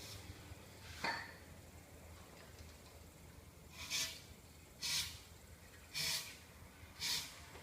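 Aerosol spray can giving short puffs into the tyre bead around the wheel rim: four brief hisses about a second apart, after a single click about a second in.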